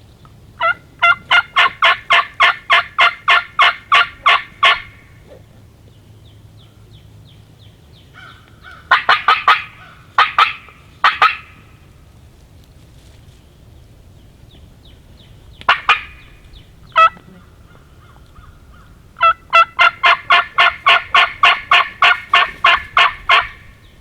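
Wild turkey yelping: two long runs of evenly spaced, sharp yelps at about four a second, more than a dozen notes each, with a short cluster of notes and a couple of single notes between them.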